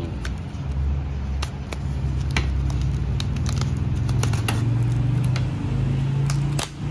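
A cardboard box of live fish being opened by hand: scattered clicks, scrapes and rustles of packaging, over a steady low hum.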